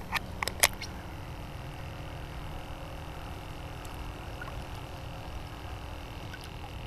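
A few sharp clicks and knocks of handled gear in the first second, then a steady low electric hum with a faint high whine from a small motor on the boat.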